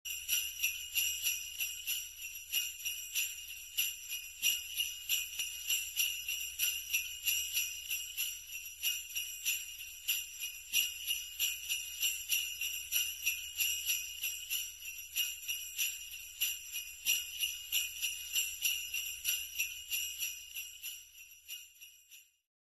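Jingle bells shaken in a steady, even rhythm, fading out over the last two seconds or so.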